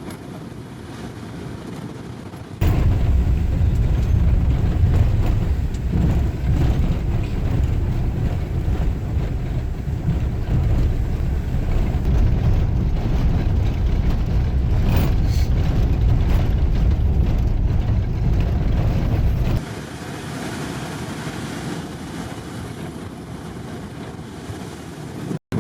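Bus running on a rough mountain road, heard from on board: a steady engine and road rumble. The rumble turns much heavier and louder about two and a half seconds in, then drops back abruptly near twenty seconds.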